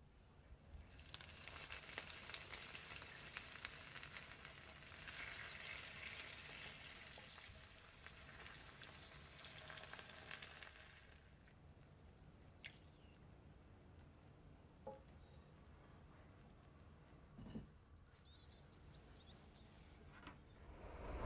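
Faint crackling sizzle of hot tomato sauce being poured into a glass baking dish around stuffed potato halves. It lasts about ten seconds, then stops, leaving a few faint clicks.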